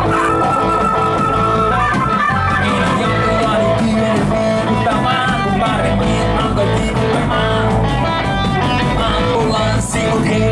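A rock band playing live: electric guitar, bass guitar and drums, with a Nord Electro 2 stage keyboard.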